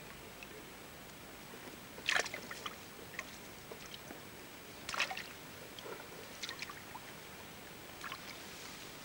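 Water splashing and dripping in short irregular bursts as fish are lifted by hand out of a wet keepnet, the loudest splashes about two seconds and five seconds in.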